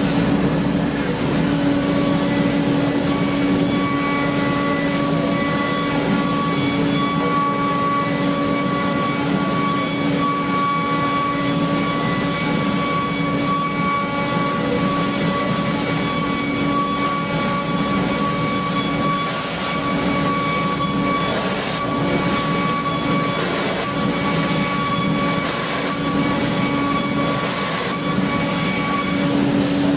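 CNC machining equipment running steadily, a constant hum with a high steady whine that comes in a few seconds in and drops away near the end.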